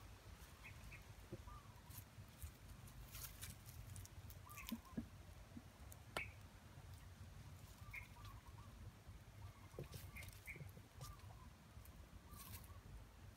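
Faint outdoor quiet with scattered small clicks and knocks from a clay cooking pot and sticks being handled at a wood fire, including a sharper clink about six seconds in as the clay lid goes onto the pot. Faint short bird calls now and then.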